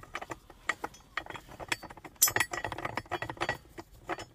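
Ratchet wrench with a 13 mm socket being worked back and forth to loosen a tight bolt, its pawl giving irregular runs of sharp metallic clicks that are busiest in the middle.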